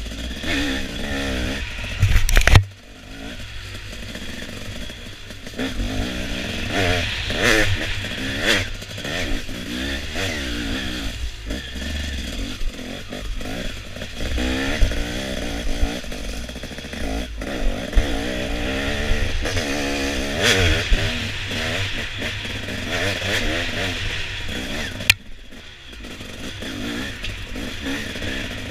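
Dirt bike engine revving up and down over and over as the throttle is worked on an off-road trail, heard from an onboard camera with clatter from the bike. There is a loud thump about two seconds in.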